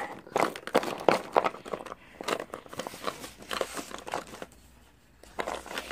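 Irregular scratching and crinkling of a sheet of paper as a child writes on it with a drawing tool and the sheet is shifted about, with a short lull near the end.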